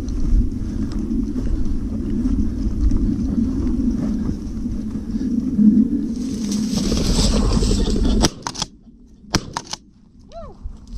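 Wind rumbling on the microphone while walking through tall dry grass, with the grass brushing and hissing loudest from about six to eight seconds. Then the rumble cuts off and a few sharp knocks follow as the camera is handled, with a short falling squeak near the end.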